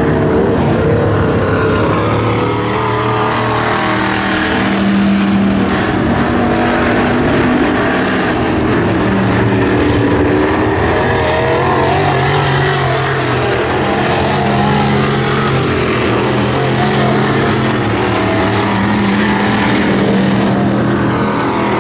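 Several WISSOTA Midwest Modified dirt-track race cars running laps, their V8 engines overlapping and rising and falling in pitch as they throttle through the turns and pass by.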